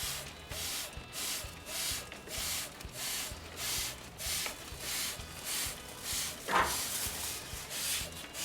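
Water jet from a high-pressure washer hissing over an air conditioner's blower fan as the fan is turned by hand, coming in rhythmic surges about twice a second, with one louder splash about six and a half seconds in.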